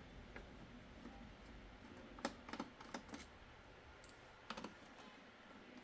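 Scattered sharp clicks and taps of plastic laptop casing and small tools being handled while the bottom cover is unscrewed and taken off, a cluster of them in the middle of a quiet stretch.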